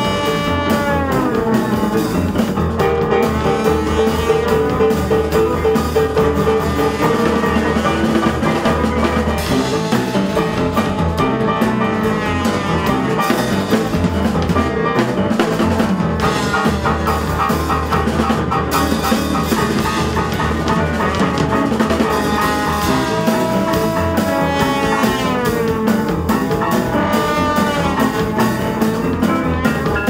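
Live band music: French horn playing a melody over trombone, electric bass guitar and drum kit, with a few notes sliding downward in pitch.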